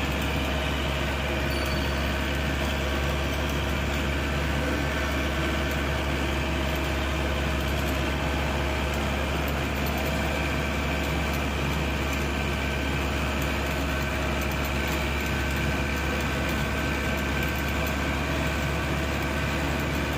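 Bus engine running steadily under way, heard from inside the cab with the even drone of the moving bus.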